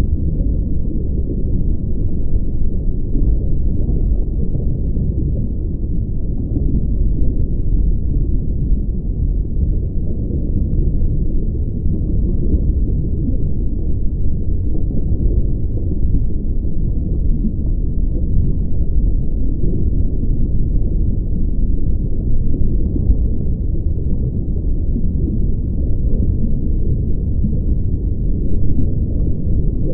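Steady, deep ocean-like rumbling hum that holds even throughout, with nothing in it above a low pitch.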